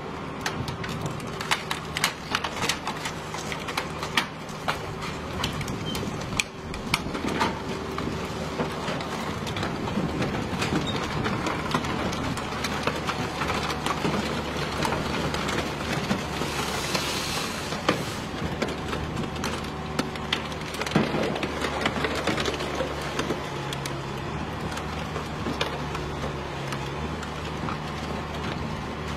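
Car crusher running steadily as its press flattens two stacked cars, with a constant machine hum under many sharp cracks and snaps of buckling metal and breaking glass. A brief hiss comes about halfway through.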